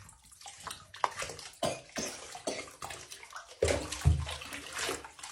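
Water splashing in a bathtub in irregular bursts, with one louder, deeper splash a little past halfway.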